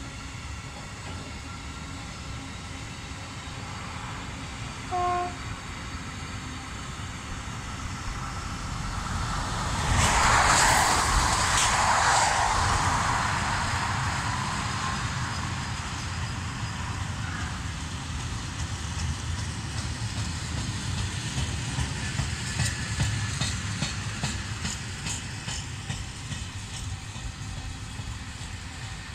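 Long mixed freight train rolling past on an electrified line, its wheels rumbling steadily on the rails. A brief horn toot about five seconds in, then around ten seconds in a passenger multiple unit passes on the other track as a loud rush that fades over a few seconds; near the end a run of wheel clicks over rail joints.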